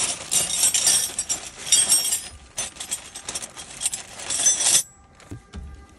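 Metal tools clinking and jangling in dense, irregular bursts, stopping suddenly about a second before the end.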